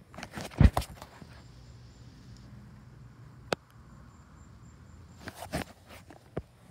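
Scattered knocks and scuffs of a handheld phone being moved and handled while walking. The loudest bump comes about half a second in, a single sharp click near the middle, and a few more knocks toward the end.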